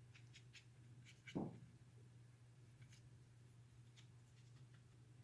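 Faint scratchy strokes of a paintbrush dabbing paint onto a canvas textured with modeling paste, over a steady low hum. There is one brief low thump about a second and a half in.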